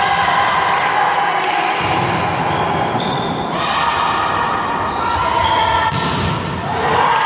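Volleyball rally in a sports hall: the ball smacked by serve and hits, with players' and spectators' voices calling throughout. A sharp, loud hit comes about six seconds in.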